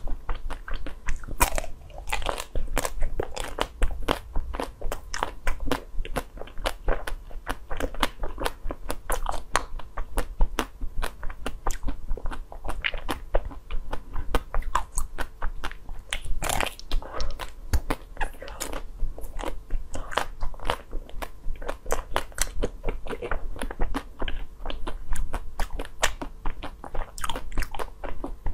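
Close-miked biting and crunching into a frozen ice pop, with chewing of the icy pieces: a dense run of sharp, crisp cracks, several a second.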